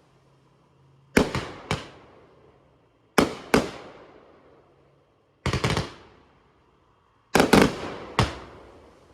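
Fireworks going off: sharp bangs in quick groups of two or three, a group about every two seconds, each bang trailing off in an echo.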